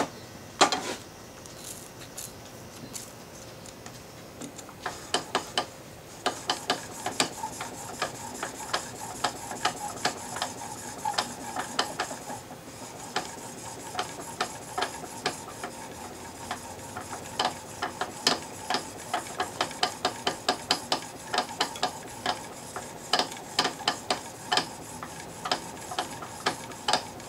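Steel blade held in a honing jig, stroked back and forth on a fine diamond sharpening plate: a steady gritty rasp with a quick run of sharp ticks from the strokes, honing the micro bevel. The ticks are sparser in the first few seconds and come fast and regular from about six seconds in.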